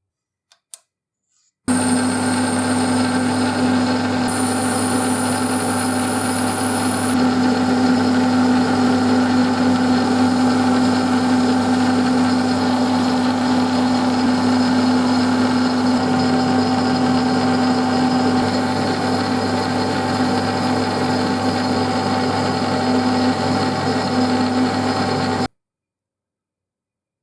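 Electric metalworking machine tool running steadily with a constant hum and whine, starting and cutting off abruptly, with a couple of light clicks just before it starts.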